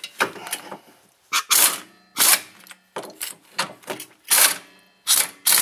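Impact wrench run in several short bursts, snugging up the rear brake caliper mounting bracket bolts, with metal clicks between bursts.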